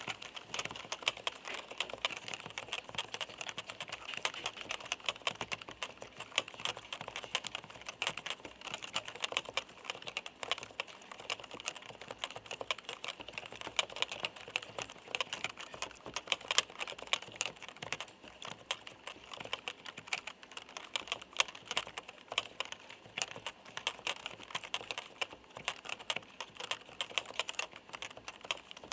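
Fast, continuous typing on a Topre FD-0100 capacitive non-contact (electrostatic) keyboard: a steady stream of light, clacky keystrokes.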